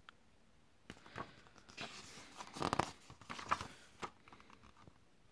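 Paper pages of a mediabook's bound booklet being turned and handled: a run of faint rustles and flicks, loudest in the middle.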